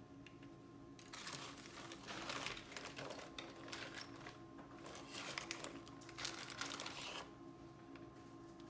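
Crinkling and rustling, a dense run of fine crackles, from about a second in until shortly before the end, over a steady faint hum.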